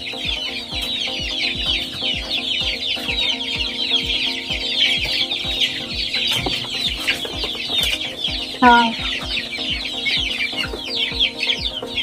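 A flock of month-old native chicken chicks peeping continuously, a dense chorus of short, high, falling peeps. One louder, lower call stands out briefly about nine seconds in.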